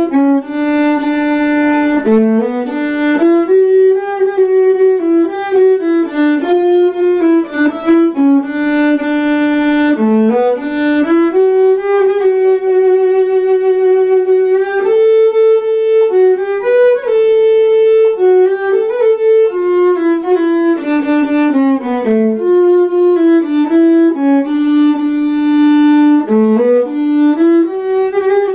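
Instrumental background music: a slow single melody, likely a violin, sliding between notes.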